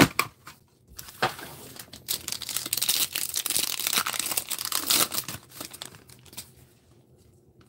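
A trading-card booster pack wrapper being torn open and crinkled by gloved hands, a few seconds of crackling and tearing that dies away near the end.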